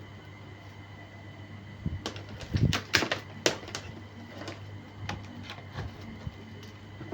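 A run of sharp clicks and knocks from the Acer laptop's plastic case and parts being handled after the RAM module is fitted. The clicks begin about two seconds in and are loudest near the middle, over a steady low hum.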